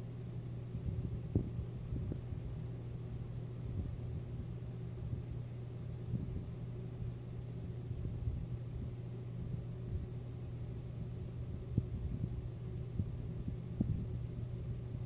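A steady low hum with scattered soft, low taps and thuds.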